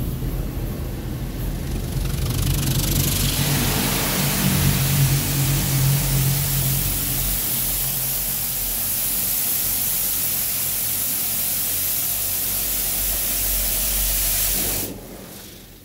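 High-pressure rinse jets of an automatic touchless car wash spraying water against a van's body and windows, heard from inside as a loud, steady hiss that builds over the first few seconds and cuts off shortly before the end. A steady low hum runs beneath it.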